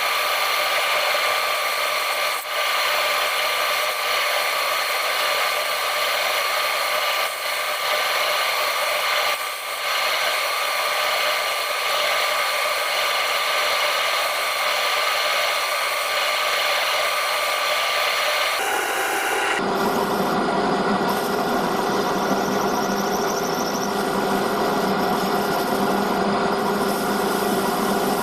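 Metal lathe running while a steel pin is worked on it: a steady machine whine with cutting and rubbing noise over it. About nineteen seconds in the sound changes and a lower hum comes in.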